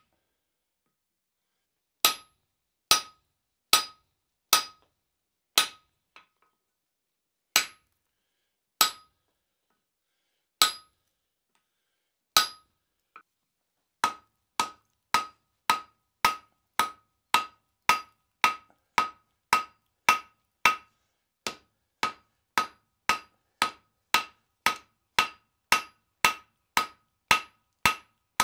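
Hammer blows on hot steel on an anvil, each strike with a short metallic ring, fullering either side of a tomahawk's eye. About nine spaced, uneven blows come first, then from about halfway a steady run of roughly one and a half blows a second.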